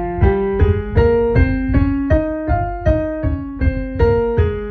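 Digital piano playing an F minor scale, the two hands an octave apart, about three notes a second, stepping up one octave and back down.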